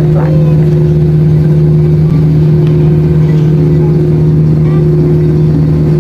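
Steady, loud drone inside an airliner cabin: the engines and air system running at a constant low hum with no change in pitch.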